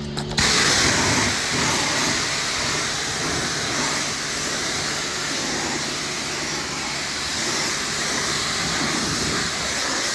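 High-pressure washer jet spraying water onto a car's bodywork: a loud, steady hiss that starts about half a second in.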